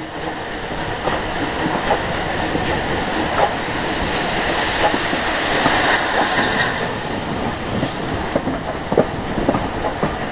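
Rebuilt Battle of Britain class steam locomotive 34059 running along the line, heard from on board: a dense rush of exhaust and running noise with irregular clicks and knocks of the wheels on the rails, growing louder over the first few seconds and hissing most strongly around the middle.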